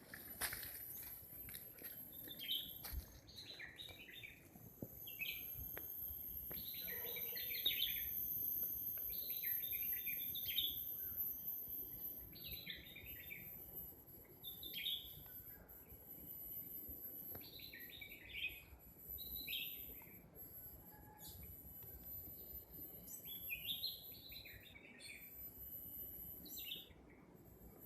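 Leafbird (hijau sami) singing: short chirping, warbled phrases repeated every second or two, over a steady high-pitched whine.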